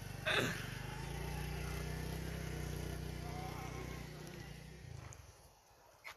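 Small motorcycle engine running steadily with a buzzing drone as the bike rides away, fading out over the last second or so. A short loud burst sounds near the start.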